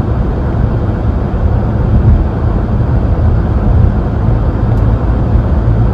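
Steady low road noise inside a moving car's cabin.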